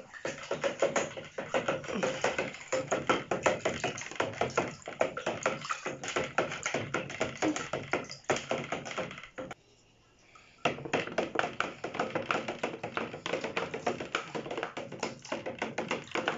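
Water with washing-up liquid being stirred fast round a container, the stirrer tapping and clattering against the sides in a rapid, steady rattle that stops for about a second past the middle.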